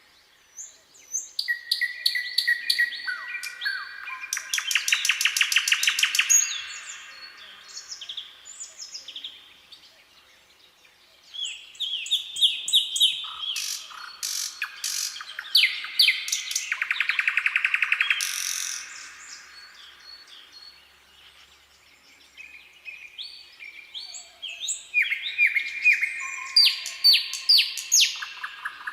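Nightingale singing in three song bouts separated by short pauses, each a run of varied whistles and chirps with fast repeated notes; the first two bouts each build to a rapid rattling run of notes.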